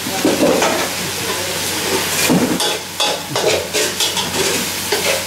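Minced beef sizzling as it is dry-fried in a hot steel wok, with a long metal spatula scraping and turning it against the pan over and over.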